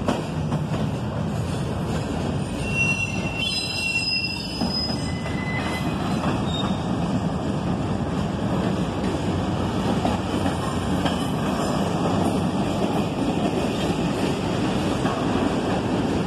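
Intermodal freight cars rolling past on the track: a steady rumble of steel wheels on rail, with brief high wheel squeals about three to five seconds in.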